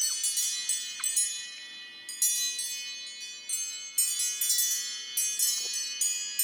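Old iPhone ringtone: a melody of high, chime-like bell notes, each struck and left ringing as the next one comes in.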